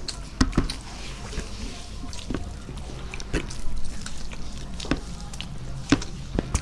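Eating sounds: chewing, with irregular wet clicks and smacks, over a steady low hum.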